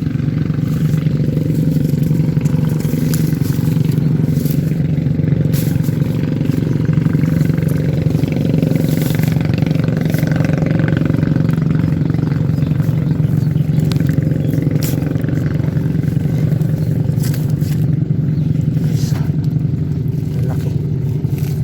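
Steady low drone like a running motor, unchanging throughout, with a few faint clicks.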